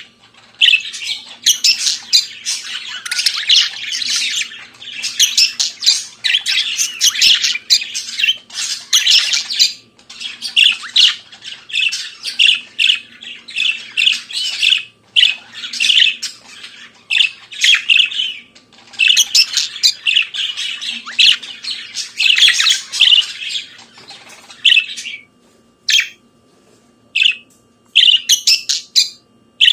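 Budgerigar warbling: a fast, continuous chatter of squawks, chirps and whistled notes. It thins to a few short chirps over the last few seconds.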